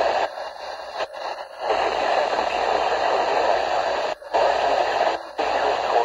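A Midland weather radio's small speaker playing a NOAA Weather Radio broadcast, heavy with hiss and static. The sound breaks off in several brief gaps.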